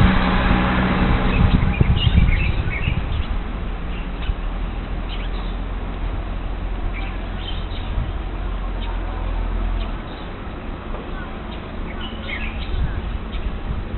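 Small birds chirping, in short scattered calls, over a steady low hum of background noise that drops off about ten seconds in.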